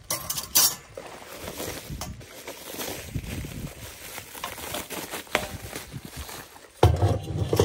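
Plastic bubble wrap rustling and crinkling as a camp heater's parts are unwrapped by hand, with the sharpest crinkles about half a second in. A loud low thud near the end.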